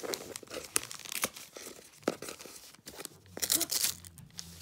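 Gift wrapping paper being torn and crinkled by hand off a box, in short uneven rips. The loudest tearing comes about three and a half seconds in.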